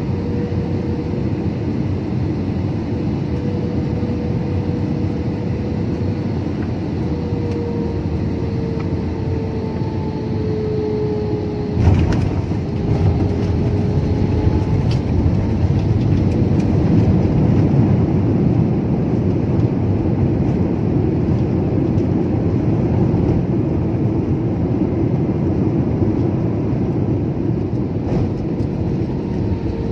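Jet airliner cabin noise on final approach: steady engine and airflow noise with a faint tone gliding slowly lower. About twelve seconds in the main wheels touch down with a thump, then a louder rumble of the landing roll builds for several seconds as the plane slows, easing off near the end.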